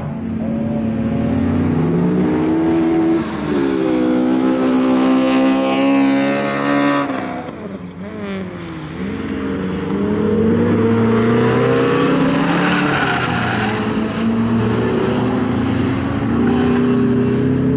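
Peugeot 306's four-cylinder engine revving hard as the car accelerates through the gears, the pitch climbing and stepping down at each shift. A little before halfway it passes close by and the note drops away. It then builds again through several more gear changes.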